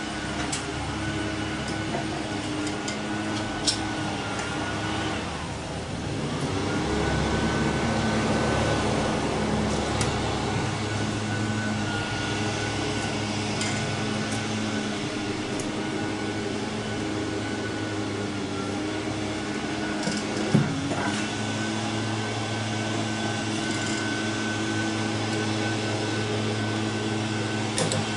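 A steady machine hum whose pitch sags and recovers about five seconds in and again around twenty seconds, with a few light clicks of hand tools on metal.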